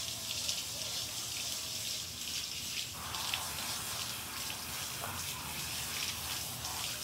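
Water spraying from a garden hose nozzle onto a dog's wet coat and splattering on concrete, a steady hiss with small splashes that grows fuller about three seconds in.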